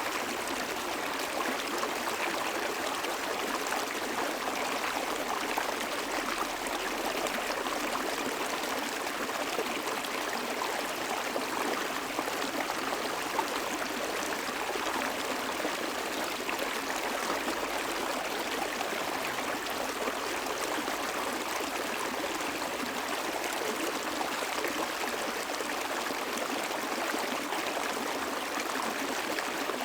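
Small stream flowing steadily, a constant trickle and rush of water with no breaks.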